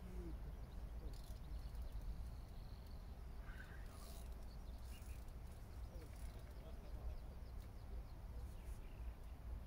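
Quiet outdoor ambience: a steady low rumble, with a few faint, short bird calls about a second in and again near four seconds in.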